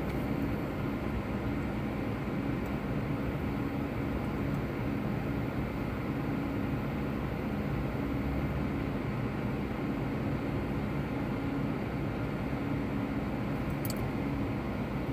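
Steady low hum of an idling vehicle, heard from inside a car.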